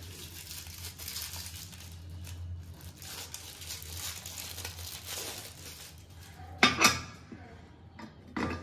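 Soft rustling of plastic wrapping and handling of a new stainless-steel pressure cooker and its lid, over a low steady hum. A couple of sharp metal clanks come about two-thirds of the way through, and another near the end.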